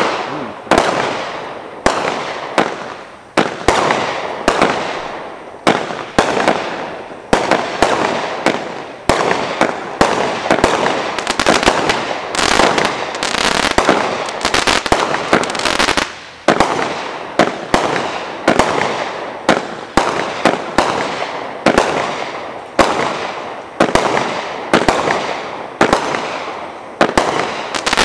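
Great Grizzly GG35 350-gram firework cake firing shot after shot, about one a second and quicker in places. Each is a sharp report that trails off in a fading crackle.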